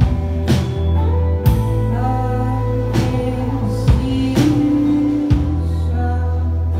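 Live band playing: acoustic guitar, electric guitars and bass guitar over a sustained bass line, with occasional drum-kit hits.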